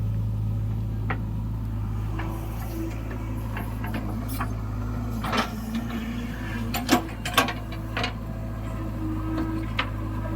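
Heavy machinery's diesel engine running steadily, with a few sharp clanks, the loudest two close together a little past the middle.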